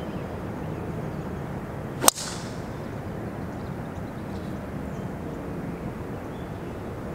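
Golf driver striking a teed ball: one sharp crack about two seconds in, with a short ringing tail, over steady low background noise.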